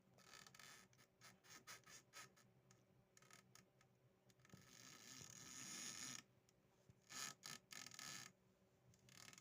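A cat making faint, squeaky sounds: a run of short squeaks, then one longer squeak of about a second and a half midway, and a few more short ones after it.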